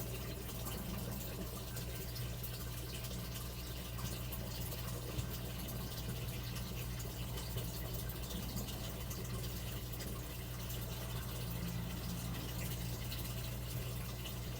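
Steady stream of water pouring and splashing down into a matamata turtle's tank, with a low steady hum underneath.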